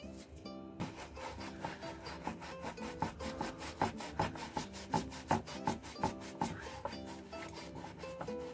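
Stiff hand brush scrubbing a rusty bayonet blade back and forth in a bath of foamy liquid. The wet scraping strokes start about a second in and come at a rough two to three a second.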